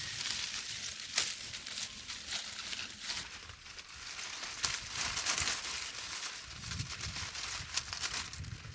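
Irregular rustling and crackling with scattered sharp clicks, like dry forest litter being handled. A low wind rumble on the microphone comes in near the end.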